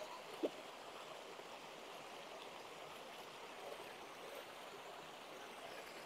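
Faint, steady rush of stream water pouring over rock ledges in a small waterfall, with one short tone about half a second in.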